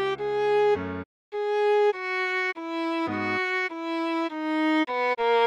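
Viola playing a melody of short separate bowed notes, about two to three a second, with lower notes sounding underneath at the start and a brief break just after a second in.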